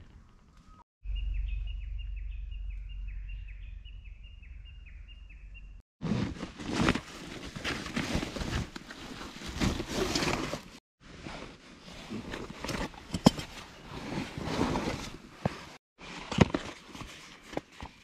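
A small bird singing a quick run of short, high, falling notes over a low wind rumble on the microphone, followed by rustling and handling noise with small knocks as camping gear is pulled out of a backpack.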